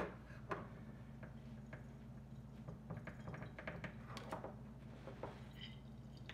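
Faint scattered clicks and light knocks from a lemon and a drinking glass being handled at a kitchen counter while the lemon is squeezed into the glass.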